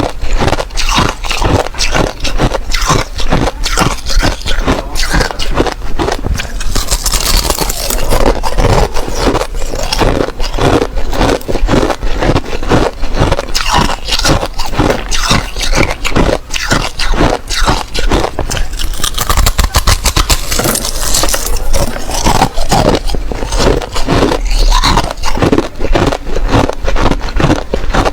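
Thin ice being bitten and chewed close to the microphone: a dense, continuous run of sharp crunches and crackles, several a second, with brief stretches of brighter, hissier crackling.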